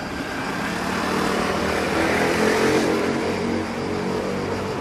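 A motor vehicle's engine passing close by, getting louder to a peak about two to three seconds in and then fading.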